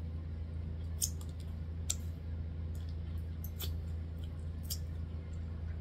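Close-up mouth sounds of chewing a bite of buttered corn on the cob and licking fingers: a few sharp wet clicks, irregularly spaced, over a steady low hum.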